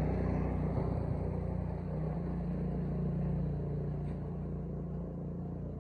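Steady low drone of an engine running at constant speed, easing slightly quieter over the last couple of seconds.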